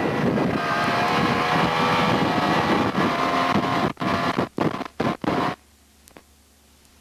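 A motor running steadily with rushing noise; it cuts in and out several times, then stops about five and a half seconds in.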